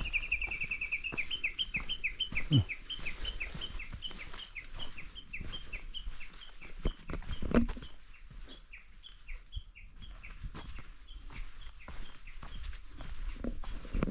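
A songbird singing one long series of repeated whistled notes: a fast trill at first, then slower, evenly spaced down-slurred notes of about three a second that fade out about ten seconds in. Footsteps on the trail run underneath, with two louder thumps.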